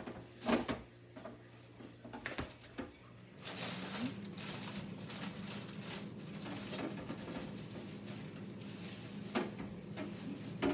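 Groceries and a fridge drawer being handled while food is put away in a refrigerator: a few knocks and clicks. About three and a half seconds in, a steady hum with a hiss starts and keeps going.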